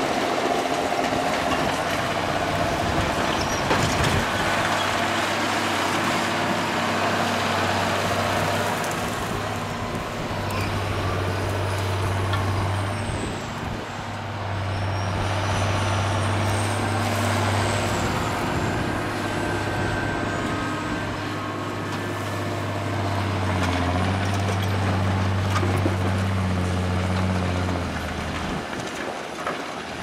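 John Deere 6630 tractor's six-cylinder diesel engine working under load as it pulls a plough, a steady deep hum with a strong low drone that drops away near the end.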